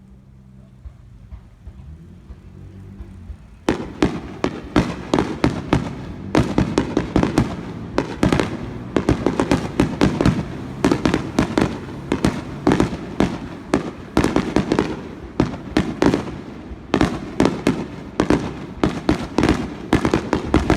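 Fireworks display firing a rapid barrage: a dense run of sharp bangs, several a second, that starts suddenly about four seconds in, after a quiet low hum.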